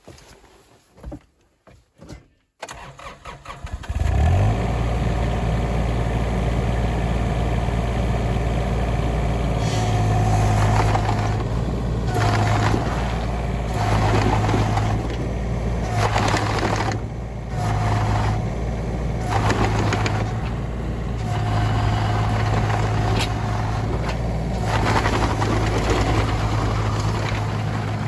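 Komatsu PC16 mini excavator's diesel engine starting about four seconds in and then running steadily. From about ten seconds in it repeatedly strains in short spells, each lasting about a second or two, as the hydraulics are loaded to drive and steer the studded tracks.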